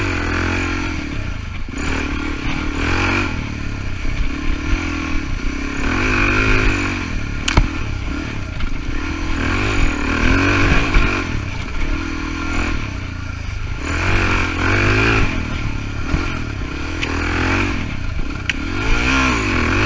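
Suzuki DR-Z400E's single-cylinder four-stroke engine revving up and down over and over as the dirt bike is ridden along a trail, with a sharp knock about seven and a half seconds in.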